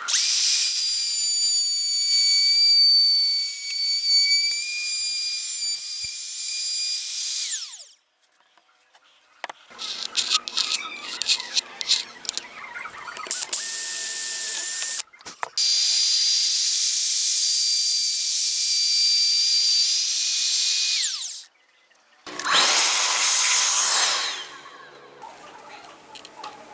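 Compact trim router running at full speed as it cuts into wood, a high whine that spins down about eight seconds in. A drill runs in a quieter, busier stretch, then the router whines at full speed again and spins down, and a short loud burst of cutting noise follows near the end.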